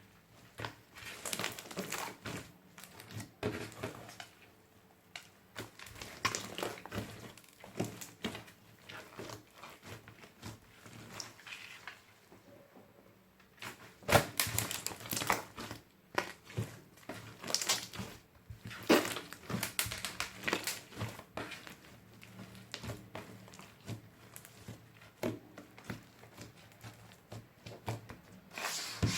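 Soft slime mixed with glitter and beads being squished, pressed and stretched by hand, giving irregular runs of small sticky clicks and crackles, with a few louder bursts in the middle and near the end.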